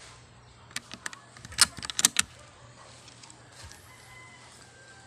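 A quick run of sharp clicks and knocks from handling the rifle and its scope-mounted camera, loudest about one and a half to two seconds in. Faint bird calls follow in the background.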